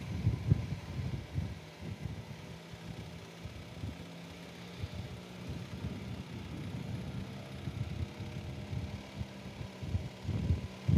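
Motorcycle engine running at low speed, heard through a helmet-mounted camera microphone, with an uneven low rumble that swells near the end.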